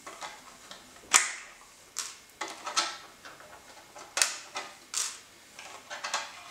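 Sharp plastic clicks and rattles as the body shell is worked off an RC truggy's chassis, about six separate clicks over a few seconds.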